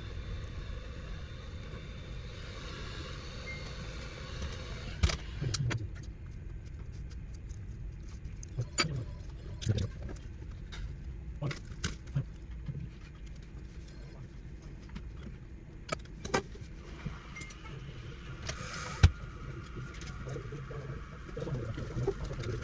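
Scattered sharp clicks and light clinks of small tools and laptop parts being handled during a MacBook Pro keyboard repair, about a dozen in all with the loudest near the end, over a steady low hum.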